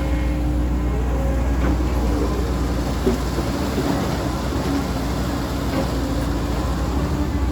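CAT 320D2 GC excavator's diesel engine running steadily while it works, with a few tones that come and go over the drone and a brief knock about three seconds in.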